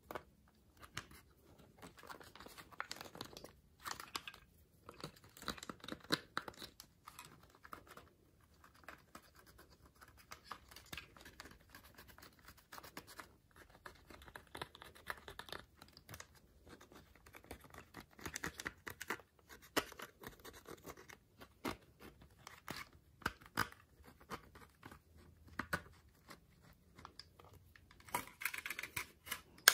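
Thin metal tool scraping pressed makeup powder out of the pans of a plastic toy makeup palette: intermittent scratching and clicking strokes, louder near the end.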